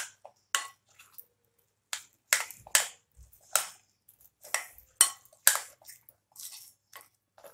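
Metal spoon beating thick besan (gram-flour) batter in a glass bowl: short scraping, squelching strokes with the spoon knocking the glass, somewhat under two a second.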